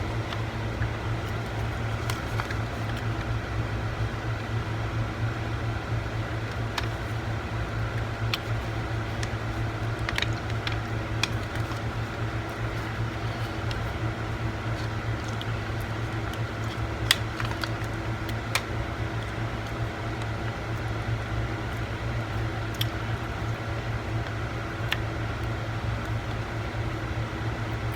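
Steady low machine hum, like a fan or air conditioner running, with scattered light clicks and taps of small parts as a laptop drive is fitted into its drive caddy.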